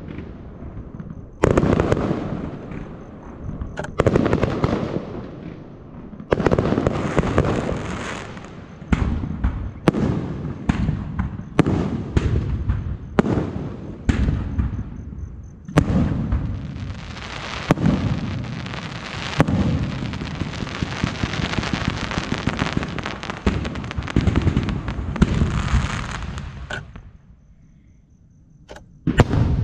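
Fireworks show: shells bursting one after another, each sharp bang followed by a long fading echo. A brief lull comes near the end, then the bangs start again.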